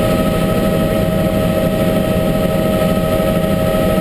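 Helicopter in flight heard from inside the cockpit: the steady loud drone of its engine and rotor with a constant whine over it.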